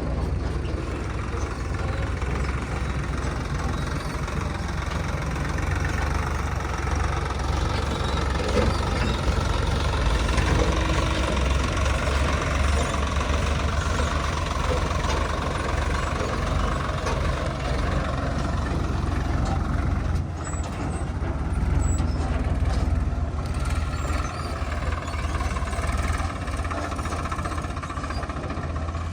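Heavy diesel engine of a tractor or backhoe loader running steadily, with a deep continuous rumble.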